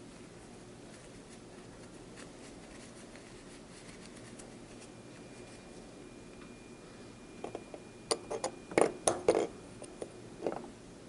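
Hand-work noises on a bench: a quick run of sharp clicks and knocks from about two thirds of the way in, the loudest near the end, over a faint steady high whine.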